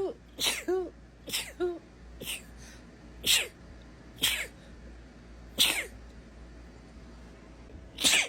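A woman sneezing over and over in a fit: about seven sharp sneezes, several ending in a short squeaky voiced 'choo', with a pause of about two seconds before the last one.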